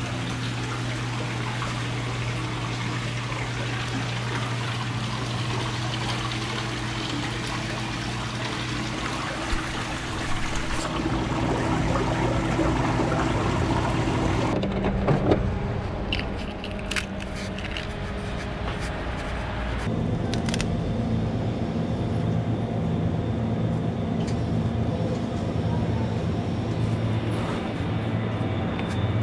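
Water running and splashing in live-seafood holding tanks, with a steady low hum under it. About halfway through it cuts to a different steady hum with a few sharp clicks and knocks.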